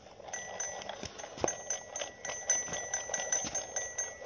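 Plastic toy police motorcycle's built-in bell dinging rapidly, about four metallic strikes a second with clicks, while the rider figure's head is pressed down.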